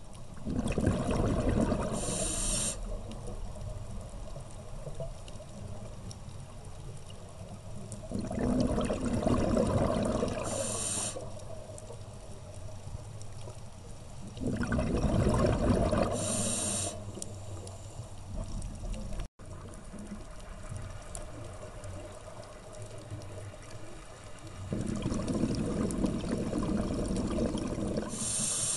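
A scuba diver's regulator breathing, heard underwater: four long bubbling exhalations of two to three seconds each, roughly every six to eight seconds, each ending in a short hiss, over a quieter low underwater rumble between breaths.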